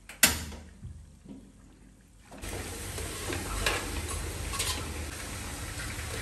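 A sharp knock near the start, then after a couple of seconds of quiet a steady hiss with a couple of light metallic clinks as a slotted metal skimmer lifts peeled boiled eggs into a steel pot.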